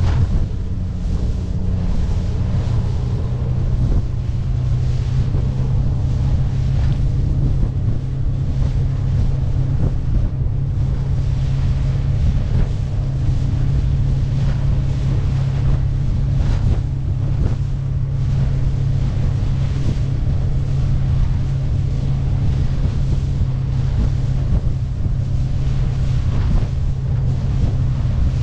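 Suzuki 50 hp four-stroke outboard running at a steady cruising note under a small boat under way in a choppy sea. Water rushes and splashes past the hull, and wind buffets the microphone.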